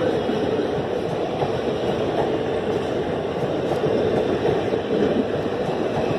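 Passenger coaches of an express train rolling past on the platform line: a steady rumble of steel wheels on the rails, with a few faint clicks.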